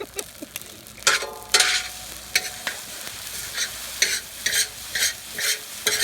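Fried rice being stirred and scraped around a hot wok with a spatula over a steady sizzle. The scrapes come in quick strokes, about two a second from about a second in, each with a faint metallic ring.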